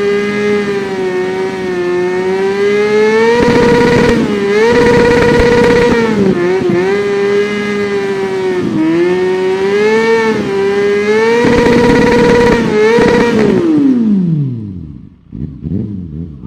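Kawasaki Ninja 400 motorcycle engine running at high, fairly steady revs, with several brief dips in pitch. About 13 seconds in the revs fall away, followed by a few short rising and falling revs near the end.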